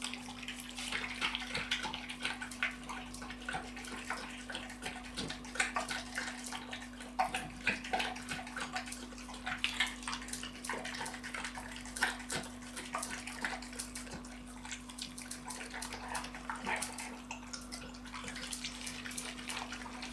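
American pit bull terrier eating raw meat from a stainless steel bowl: quick, irregular wet chewing and smacking over a steady low hum.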